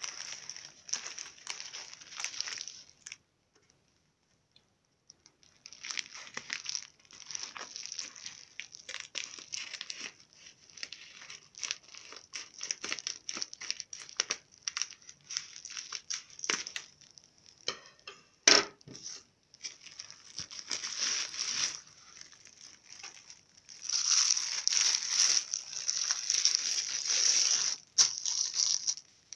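Plastic bubble mailer crinkling as it is handled and cut open with scissors, with a pause of about two seconds near the start and one loud sharp snap a little past the middle. Near the end a clear plastic bag crinkles loudly and steadily as it is handled.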